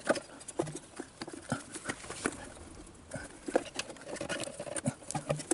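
Irregular small clicks and taps of hands handling carburettor parts and fittings on a Daelim VT 125 motorcycle as the carburettor is refitted.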